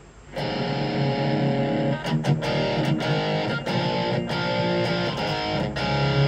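Electric guitar played through a Blackstar ID:Core Stereo 10 V2 practice combo amp switched to a distorted voice. Chords start about half a second in and ring on, with several fresh strums.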